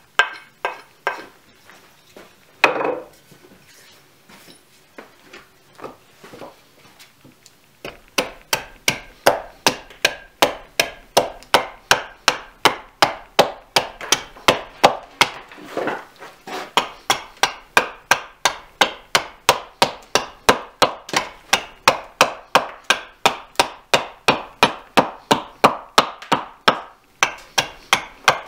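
Hultafors axe chopping into a raw birch block on a wooden chopping stump: a few scattered knocks, then, about eight seconds in, a steady run of short sharp chops, about three a second, as the outside of the mug blank is hewn.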